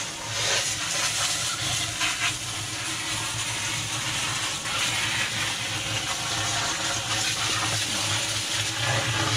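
Water pouring steadily into a sewer ejector pump basin, filling it to raise the new piggyback float switch so that it switches the pump on.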